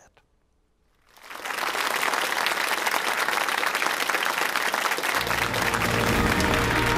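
Studio audience applause swelling up after a second of near silence, with the show's break music coming in under it about five seconds in.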